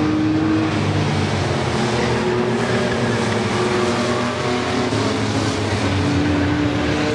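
Engines of several racing pickup trucks running together at speed, a steady loud drone of overlapping engine notes that shift in pitch.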